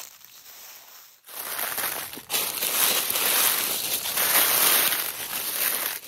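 Footsteps crunching through dry fallen leaves. Faint separate steps at first, then about a second in the crunching and rustling underfoot turns much louder and dense, continuing.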